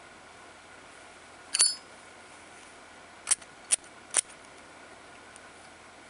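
Chrome-plated brass Zippo lighter having its lid flipped open, a sharp metallic click with a brief high ring about one and a half seconds in. About two seconds later come three more quick sharp metallic clicks from the lid and hinge.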